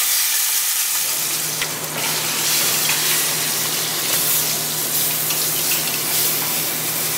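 Whole chicken searing in smoking-hot olive oil in the base of an aluminium stovetop pressure cooker: a loud, steady sizzle.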